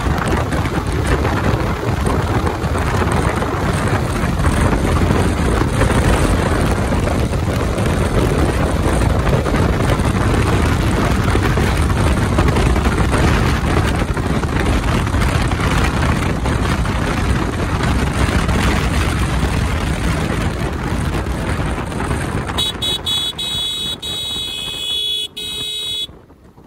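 Wind rushing over the microphone of a Yamaha R15 motorcycle riding at speed, a dense, steady noise. Near the end a steady high tone sounds for about three seconds, then the noise drops away.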